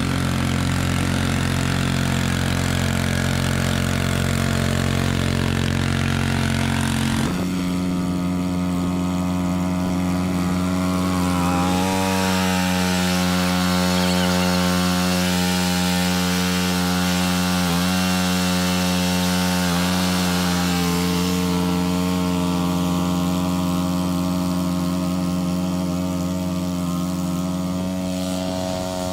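Cub Cadet 2X 30-inch EFI two-stage snow blower engine running steadily at a constant speed. About seven seconds in, the tone changes abruptly to a different steady pitch.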